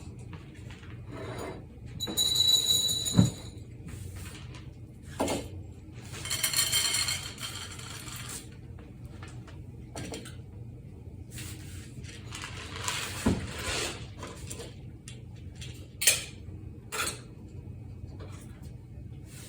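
Pet food dishes and utensils being handled: a ringing metallic clink, two stretches of scraping and rattling, and a few sharp knocks, the loudest about three seconds in and about sixteen seconds in.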